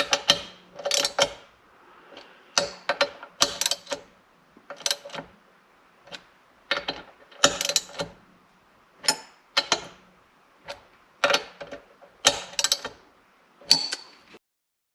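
Ratchet wrench clicking in short runs, about one run a second, as the air compressor's head bolts are snugged down one after another in a crisscross pattern. The clicking stops abruptly shortly before the end.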